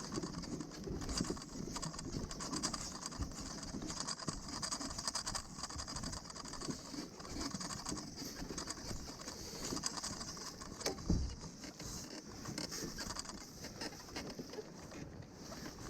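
Footsteps walking on an unpaved path, an irregular soft patter with scraping, over a faint steady high hiss; one louder knock about eleven seconds in.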